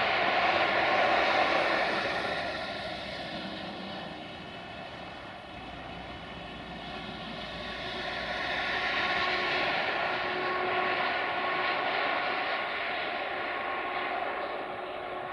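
Sulzer diesel engine of a Romanian 060-DA (LDE2100) diesel-electric locomotive hauling a freight train, running as a steady droning engine note. It is loud at first, fades a little in the middle, then grows louder again as the locomotive approaches.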